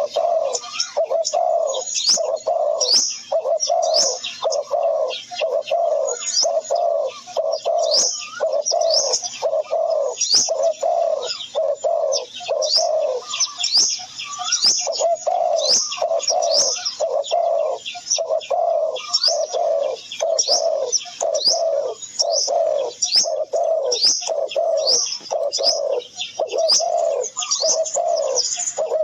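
Birds: a low cooing note repeated evenly, about one and a half to two times a second, with many quick high chirps from small birds over it.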